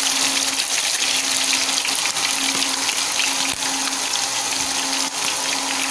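Egg-dipped chicken pieces deep-frying in hot oil in a wok: a steady sizzle with a few small pops.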